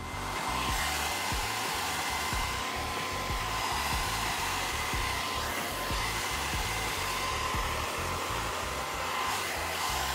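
Handheld blow dryer running steadily, a rush of air with a thin high whine, switched on at the start and cut off at the very end. It is heating the glue on a sneaker's upper and sole so it can be bonded.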